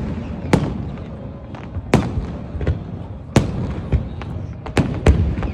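Aerial firework shells bursting in a display: five loud bangs, most about a second and a half apart and the last two close together near the end, with smaller pops between them over a steady low rumble.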